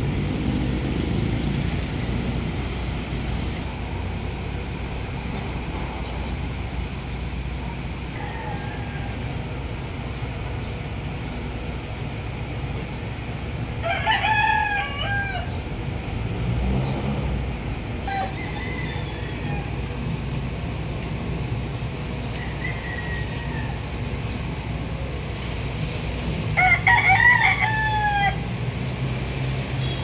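A rooster crowing twice, about halfway through and again near the end, each crow lasting about a second and a half, over a steady low background rumble.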